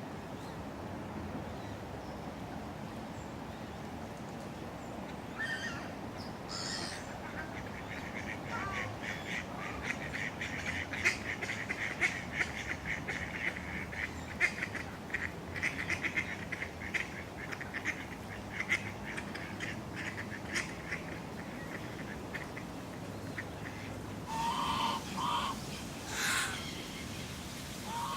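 City park ambience: a steady low hum of distant traffic under waterfowl calling, with a long run of rapid, chattering calls through the middle and a few louder, lower calls near the end.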